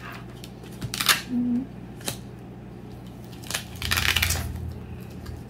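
A woman breathing out heavily twice in mock-tired sighs, the second one low and rumbling on the microphone, with a short closed-mouth hum between them and a couple of light clicks.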